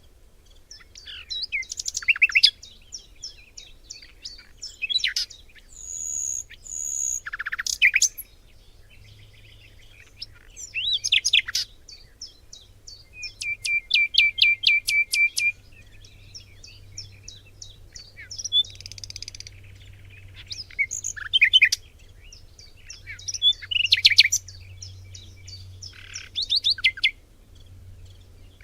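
Forest birdsong: several songbirds singing over one another, a mix of short chirps, high whistled notes and rapid trills, including a fast run of repeated notes about halfway through.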